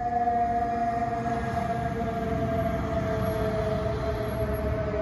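Fire truck's mechanical siren winding down, one long tone sliding slowly lower in pitch, over the rumble of the fire apparatus and city traffic.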